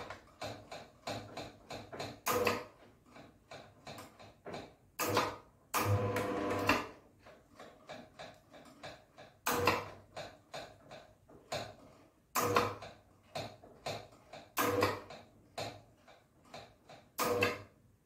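Limit adjuster on a roller garage door's motor being turned by hand with an adjusting tool, clicking about three to four times a second, with a louder knock every couple of seconds and a longer rattle about six seconds in.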